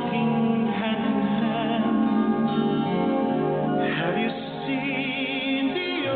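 Music with a singing voice holding long notes, one of them wavering with vibrato about four to five seconds in.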